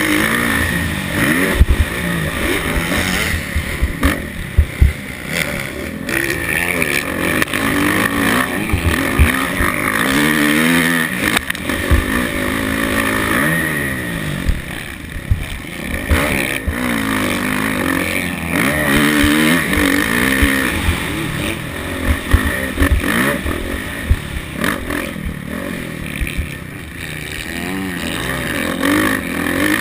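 Kawasaki motocross bike's engine racing, its revs climbing and dropping again and again through the gears, with steady wind rush and scattered sharp knocks from the bike over the rough track.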